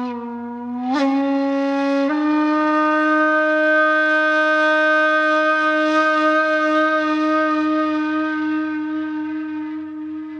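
Background music: one long held wind-instrument note. It steps up slightly in pitch twice in the first two seconds, then holds steady.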